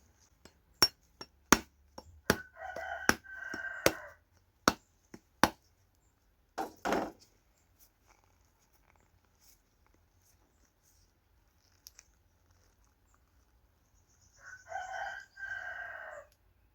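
A rooster crowing twice, the calls about twelve seconds apart. In the first few seconds, around the first crow, there are a dozen or so sharp knocks or clicks.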